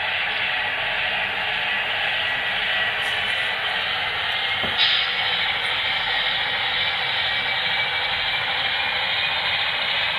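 Sound-equipped HO scale Baldwin Centipede diesel locomotive models running, their onboard speakers giving a steady, hissy diesel engine rumble, with a brief sharp hiss about five seconds in.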